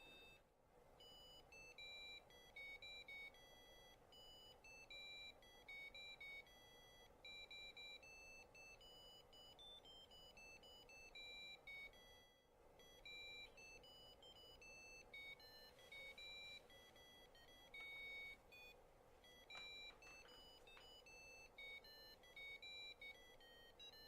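The buzzer on a Universal-Solder Christmas Tree 1 Arduino kit playing a song as a faint single line of high, beeping notes, with a brief break about twelve seconds in.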